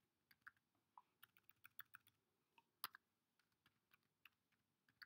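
Faint typing on a computer keyboard: a quick run of keystrokes over the first two seconds, then scattered single key clicks, one sharper click just before three seconds in.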